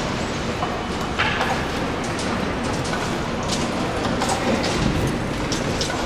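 Construction site noise: a steady machinery rumble with scattered sharp metallic clanks and knocks.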